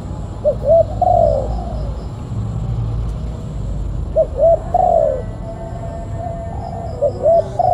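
Spotted dove cooing its song three times, about three seconds apart: each phrase is two short coos followed by a longer falling coo.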